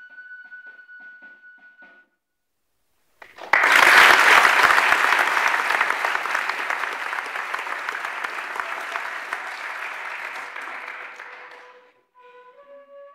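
A flute band playing a tune that breaks off about two seconds in; after a short gap, loud audience applause starts suddenly and fades away over about eight seconds. Near the end, the flutes start up again.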